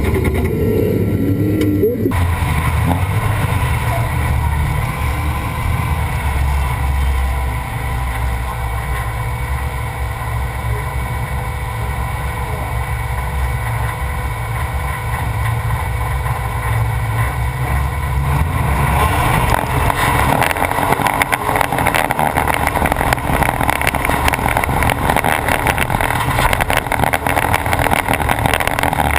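Off-road race truck running steadily with a low engine rumble. From about two-thirds of the way in it is joined by dense rattling.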